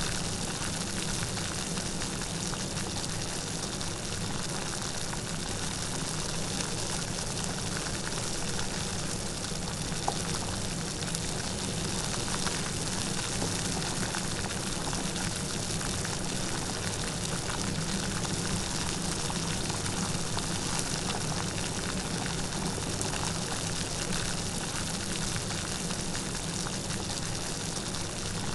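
Steady light rain falling, an even patter of drops with a few louder single drops.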